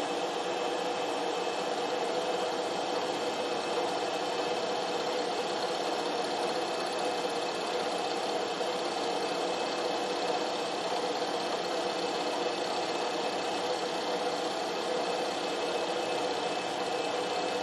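Milling machine spindle running steadily with an end mill taking a light cut in an aluminium part, as the part is turned under the cutter on a rotary table. A steady mechanical hum with one clear tone, no change in level.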